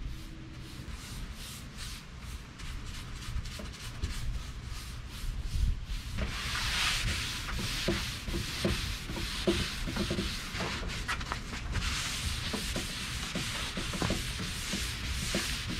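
A brush spreading wet wood stain across a dresser top in faint repeated strokes. From about six seconds in, a cloth wipes the wet stain off the wood, a louder hissing rub in back-and-forth strokes.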